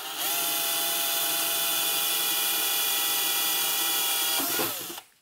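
Cordless drill running a small bit through the amplifier's metal chassis plate: a steady motor whine that drops in pitch and winds down to a stop near the end.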